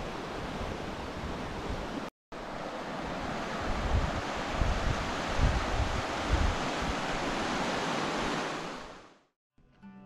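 Rushing water of a mountain stream, a steady, loud hiss-like roar, with wind buffeting the microphone in the middle. It breaks off for a moment about two seconds in, comes back louder, and fades out near the end.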